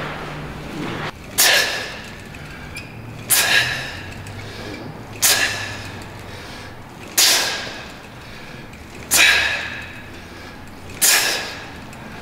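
A weightlifter's sharp, forceful exhales, six of them about two seconds apart, one with each rep of a cable exercise.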